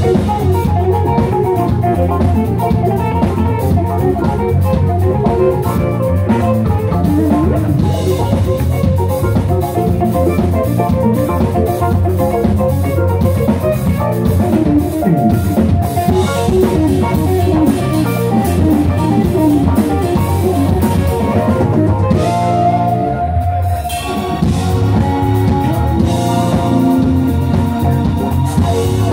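A live rock band playing an instrumental passage through a club PA: drum kit, electric guitars and keyboards together. The band thins out briefly a little past three quarters through before the full band comes back in.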